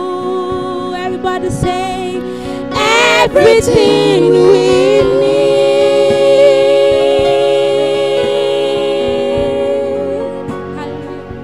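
Women singing a gospel worship song into microphones over steady held instrumental chords. The voices swell loudly about three seconds in, hold a long note, and fade near the end.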